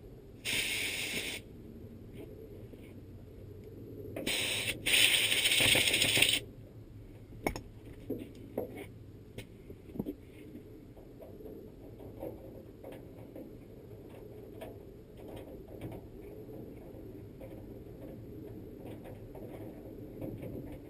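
A short burst and then a longer burst of loud hissing noise, followed by scattered light clicks and taps, like small metal parts being handled at a workbench.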